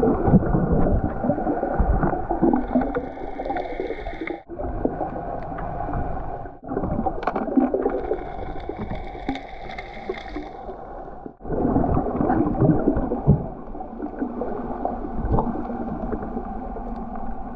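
Underwater sound through a submerged camera: a muffled, steady hum and whine of boat motors carried through the water, with scattered knocks as a gloved hand grabs cans off the bottom. The sound cuts out sharply three times.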